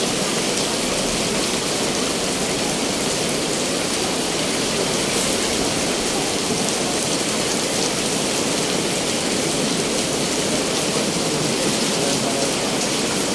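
Heavy rain falling steadily in a wind-driven rainstorm, a constant even hiss.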